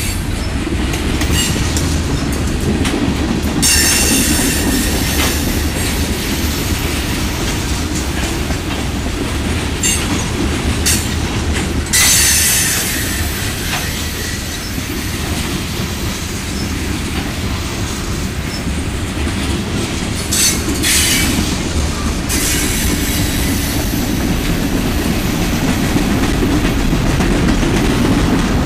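A freight train of covered hoppers and tank cars rolling past close by. The steel wheels make a steady low rumble and clack over the rail joints, with high-pitched wheel squeal rising several times: about 4 seconds in, near the middle, and again about two-thirds through.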